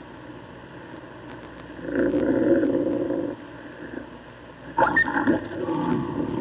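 Coyotes growling and snarling as they squabble over a carcass: a rough growl about two seconds in, then a louder, harsher snarl with higher cries about five seconds in.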